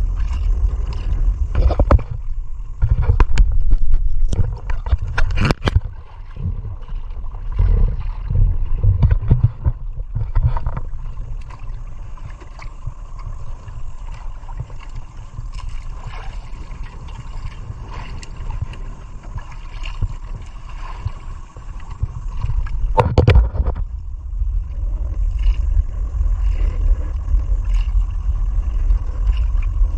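Sea water sloshing and gurgling against an outrigger fishing boat, under a steady low rumble, with irregular knocks and splashes in the first ten seconds and again about 23 seconds in.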